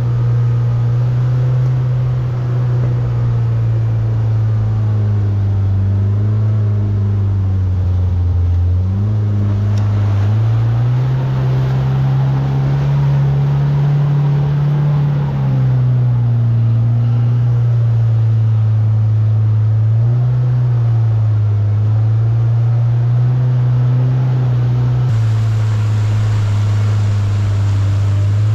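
Side-by-side UTV engine running at low, fairly steady speed while driving a trail. It picks up speed about a third of the way in and eases back a few seconds later.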